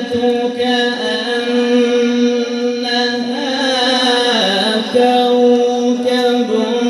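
A man's melodic Qur'an recitation (tilawat), sung into a microphone and amplified. He holds long steady notes, with a wavering, falling ornamented run a little past halfway before settling on a held note again.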